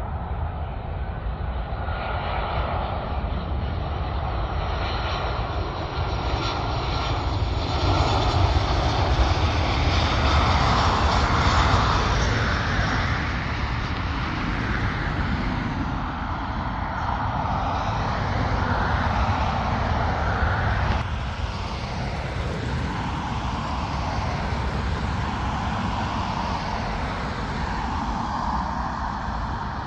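Jet airliner's engines, a steady rumbling roar with a hiss on top. It swells about a third of the way in, swells again around two-thirds through, then drops off fairly sharply.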